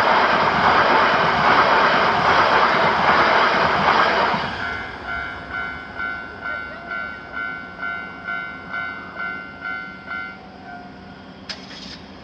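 A train passes over the level crossing, loud rolling noise that ends about four seconds in. After it, the crossing's electronic warning bell goes on alone with about two dings a second, then stops about ten seconds in. A short sharp click with a brief high tone comes near the end.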